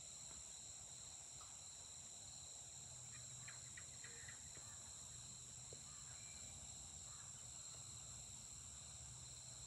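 Faint, steady high-pitched chirring of insects, with a few brief soft chirps about three to four seconds in.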